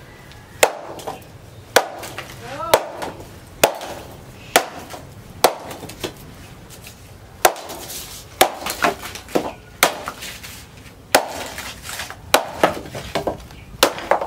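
Big hand-forged knife, made from a tractor's disc plough, chopping green bamboo against a wooden plank: sharp chops about once a second, coming quicker and closer together near the end.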